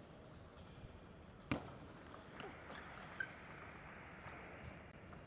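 Table tennis ball clicking on bat and table: one sharp tap about a second and a half in, then several lighter taps from about two and a half seconds in as the serve and return are played. Short high sneaker squeaks on the court floor come in twice.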